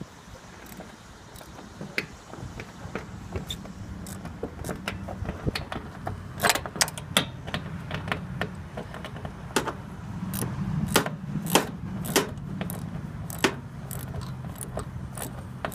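Metal tools and parts clinking and knocking in a run of sharp, irregular clicks, busiest from about six seconds in, over a steady low hum.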